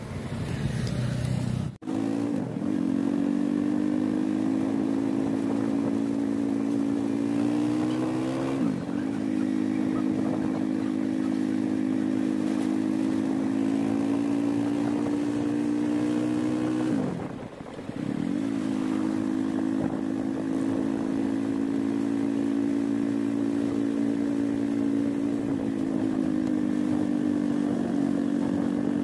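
Motorcycle engine running while riding along a road, a steady note that dips and climbs back up twice, about nine seconds in and again about seventeen seconds in, as the throttle is eased and picked up.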